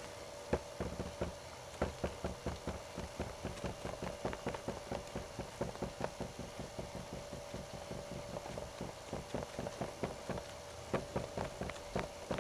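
A horse's hooves striking the arena footing at a trot: a quick, even rhythm of hoofbeats, several a second.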